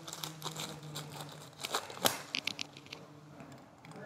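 Crinkling and clicking as a plastic charger adapter and its packaging are handled, with a cluster of sharper clicks around the middle and one louder click about two seconds in.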